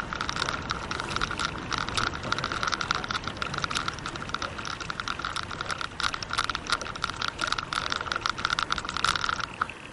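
Bicycle rear freewheel ticking so fast it runs together into a steady buzz while the bike coasts; it cuts off near the end, as pedalling would.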